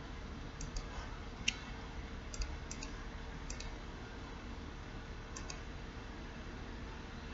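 Computer mouse clicking: a handful of sharp clicks, several in quick pairs, then it stops.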